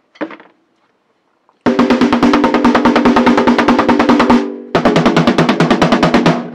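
Rapid, even drumstick strokes on a drum, played from the forearms as a demonstration of power and dynamics. A run of about two and a half seconds starts a second and a half in and tapers off, then after a short pause a second, shorter run stops abruptly.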